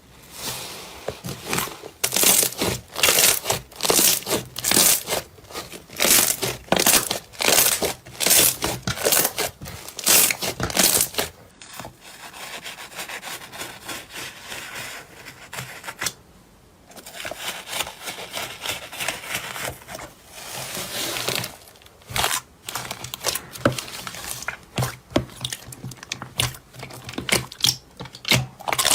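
Slime being squeezed and worked by hand: a run of crackling squishes about two a second, softer and more continuous for several seconds in the middle, then quicker sharp pops and clicks in the last part.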